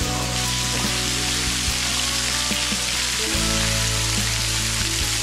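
Water from a small waterfall spattering off a sandstone ledge onto rock and a shallow pool, a steady hiss. Soft background music with sustained low notes plays under it, changing chord about three seconds in.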